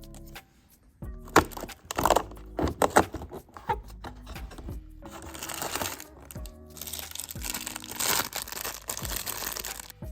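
Packaging crinkling and tearing, with a few sharp snaps and rustles about a second in, then a long stretch of steady crinkling, over background music.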